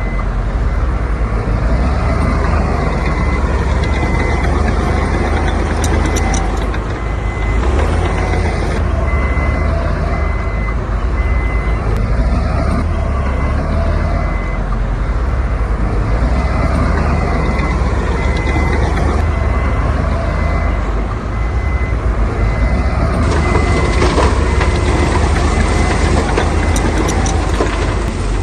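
Heavy diesel construction vehicle running under a low engine rumble, its reversing alarm beeping steadily about once a second for most of the stretch.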